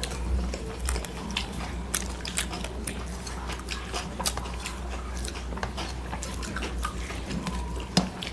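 Close-up eating sounds: chewing and smacking of mouthfuls of rice and curry, with many small wet clicks and fingers mashing rice on steel plates, and one sharper click near the end. A low steady hum runs underneath.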